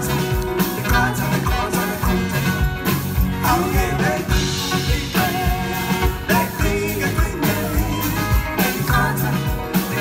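Live band music with a steady drum beat, bass line and guitar, with a singer's voice over it.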